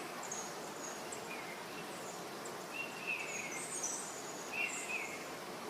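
Birds calling over a steady background hiss: a short call that dips in pitch at its end, repeated about every two seconds, with thin, higher chirps between.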